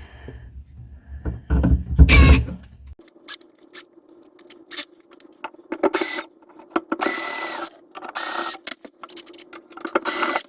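A power screwdriver running in about five short bursts, the longest under a second, backing out screws, with sharp clicks and knocks of metal in between.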